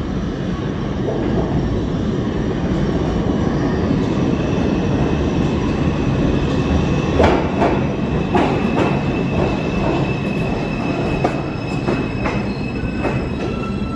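New York City Subway R142-family train rolling into the station with a constant low rumble from its wheels. A run of sharp clanks over the rail joints starts about halfway in, and a high steady wheel squeal follows through the second half as the train slows.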